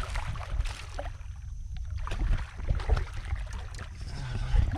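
Small splashes and knocks of water against a kayak's hull, over a steady low wind rumble on the microphone.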